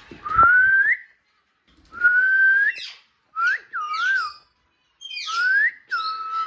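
A pet parrot whistling: a run of clear whistled notes, several sliding upward at the end and one wavering up and down, with scratchy harsher calls mixed in between.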